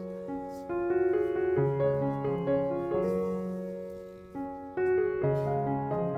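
Background solo piano music playing chords that change every half second or so.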